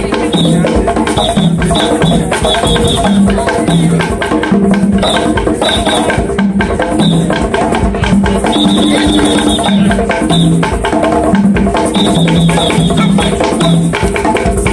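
Upbeat dance music driven by hand drumming on tall wooden drums, a fast, dense rhythm of strikes with a repeating low melodic line over it.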